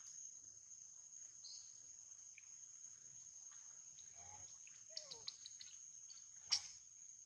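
Insects trilling steadily at a high pitch, with a couple of faint short falling calls about four to five seconds in, a few light clicks around five seconds and a sharper click near the end.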